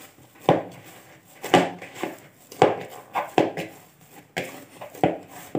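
Risen yeast dough being punched down by hand in a bowl to knock the air out: dull thumps about once a second, with soft squishing between them.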